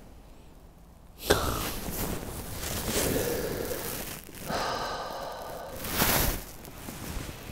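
A man's long breathy exhale of disappointment, then a second, voiced groan as the putt misses the hole.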